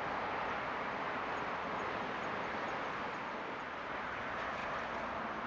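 Steady outdoor ambient hiss with no distinct event, with a faint run of high ticks, about four a second, in the middle.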